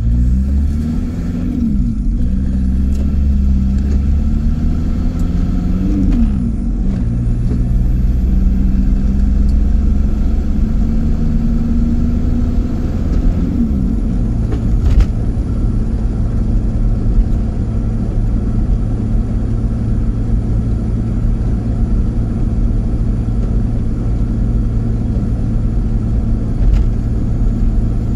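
VW T25 camper's swapped-in TDI turbo-diesel engine heard from inside the cab under way. Its note climbs and drops back three times, about two, six and fourteen seconds in, as it shifts up through the gears, then holds steady at cruising speed over a constant low road rumble.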